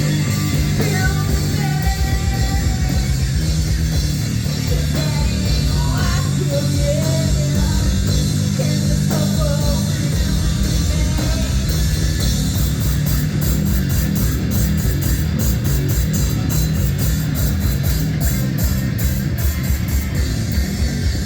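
Loud rock music played through a stage PA sound system, with guitar and drums. Fast, regular high strokes come in about halfway through.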